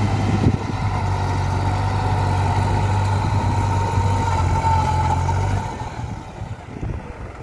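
New Holland 3600-2 tractor's three-cylinder diesel engine running steadily under load, driving a rotary tiller through dry soil, with a whine above the engine's hum. The sound drops away and grows quieter about five and a half seconds in.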